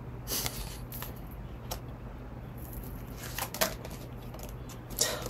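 Tarot deck being handled between draws: scattered short rustles and flicks of the cards, the busiest stretch just past halfway, over a faint steady low hum.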